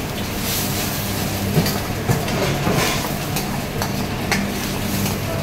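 Metal utensil stirring food in a stainless steel sauté pan, with scattered clinks and scrapes against the pan, over a steady low machine hum.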